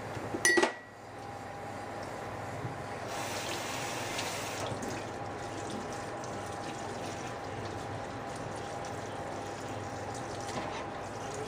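Kitchen faucet running into a stainless steel sink, the stream splashing over a whole American shad being rinsed by hand. A sharp clatter, the loudest sound, comes about half a second in.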